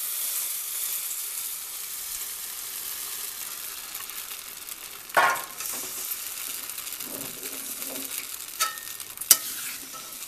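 Thin rice-and-coconut batter sizzling in a hot kadai, the hiss easing off over the first couple of seconds. A metal spatula stirs and knocks against the pan, sharply about five seconds in and twice more near the end.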